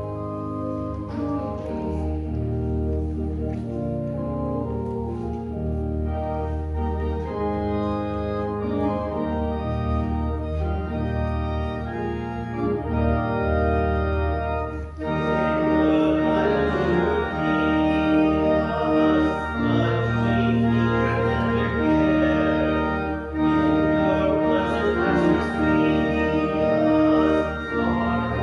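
Church organ playing a hymn in held chords that change step by step. About halfway through, the sound grows louder and fuller.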